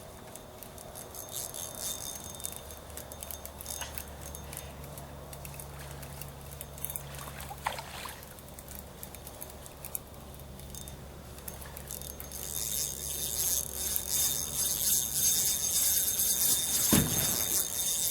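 Fishing reel being cranked to bring in a catfish: a fast run of small metallic clicks and rattles that grows louder and denser over the last several seconds. A low steady hum runs underneath.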